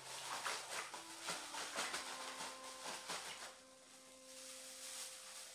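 Black plastic bag crinkling and rustling in short bursts as the liquid inside is worked by hand to mix it, easing off after about three seconds. Faint steady tones hum underneath.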